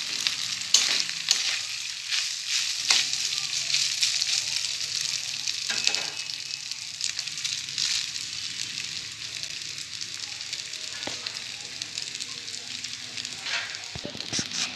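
Cooked rice sizzling as it is added by hand to hot ghee and whole spices in a pan and stirred, with a number of short clicks and scrapes from the stirring.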